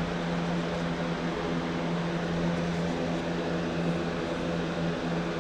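Steady motor hum of a room fan, with an even rushing of air, unchanging throughout.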